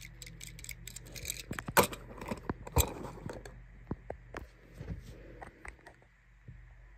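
Die-cast Tomica model car handled and set down on top of its cardboard box: a quick run of small clicks and taps, with two louder knocks about two and three seconds in, then a few scattered clicks.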